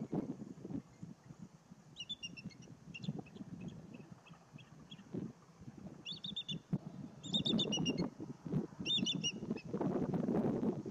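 A songbird giving short phrases of quick, high chirps, about four phrases with a few fainter notes between them. Under it runs a low, uneven rumble of wind on the microphone that grows louder near the end.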